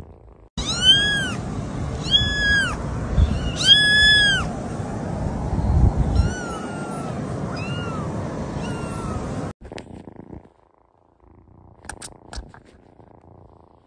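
Kitten mewing: three loud, high-pitched mews that rise and fall, then several shorter, softer mews that drop in pitch, over a steady low noise. The sound cuts off abruptly about two-thirds of the way through, leaving faint noise and a few small clicks.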